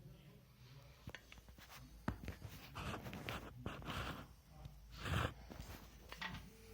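Handling noise: a few sharp clicks and knocks mixed with short bursts of scraping or rustling, the loudest a little past the middle, over a low steady hum.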